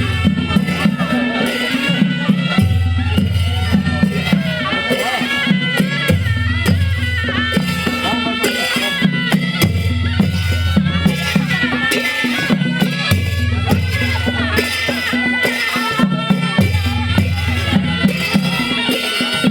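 Folk-style music: a high, wavering melody over a low bass pattern that repeats about every three and a half seconds.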